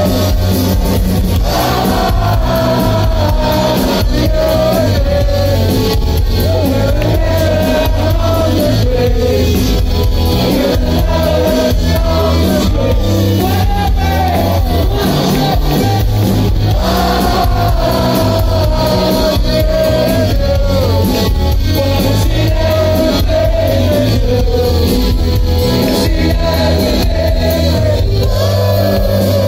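Live rock band playing through a loud PA: a male lead vocalist singing over electric guitars, bass and drums with a steady beat.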